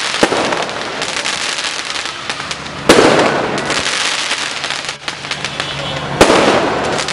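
Aerial fireworks shells bursting, with dense crackling and popping throughout. There is a loud bang about three seconds in and another about six seconds in.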